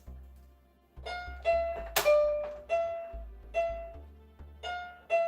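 Electronic keyboard keys pressed one at a time by a Moluccan cockatoo's beak: about nine single notes at an uneven pace, each starting sharply and fading. One note about two seconds in comes with a sharp click.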